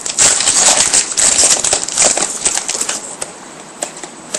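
2009 Bowman Chrome trading cards and their pack being handled: a steady rustling, sliding sound with many small clicks for about three seconds, then quieter with a few light clicks.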